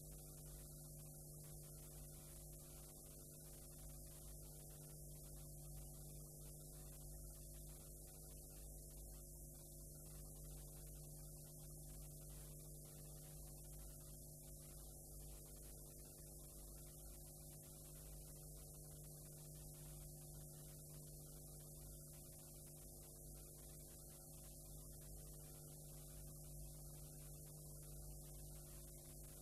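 Near silence: a faint, steady electrical hum with a high hiss, the noise floor of a blank stretch of videotape.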